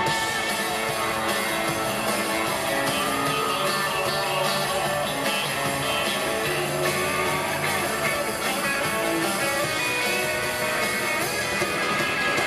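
A live country-rock band playing an instrumental break, led by electric guitars, among them a Telecaster-style guitar, with lead lines that bend up and down in pitch.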